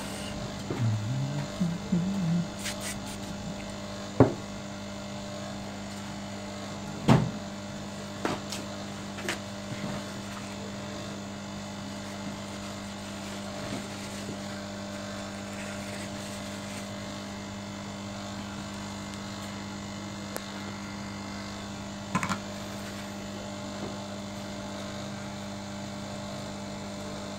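Steady electrical hum with a few sharp clicks on top: two loud ones about four and seven seconds in, smaller ones just after, and a double click a little past twenty-two seconds.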